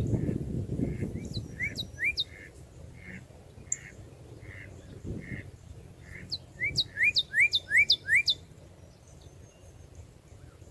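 Male northern cardinal singing loud, clear, rising whistled notes. First comes a quick group of three, then softer notes, then a louder run of about six rising notes a little past the middle, a repeated phrase that sounds like "cheer, cheer".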